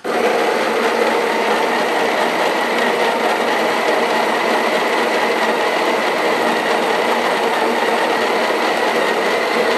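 Breville Barista Express's built-in conical burr grinder grinding a single-shot dose of coffee beans into the portafilter: a loud, steady grinding whirr that starts suddenly and holds even throughout.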